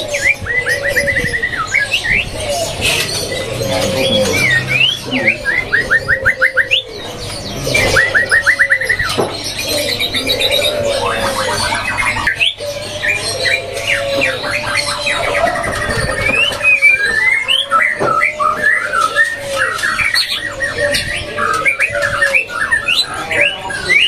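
White-rumped shama (murai batu) singing in a cage. Its song mixes rapid chattering trills, which imitate a prenjak (tailorbird), with quick slurred whistles. Lower calls from other caged birds repeat about once a second underneath.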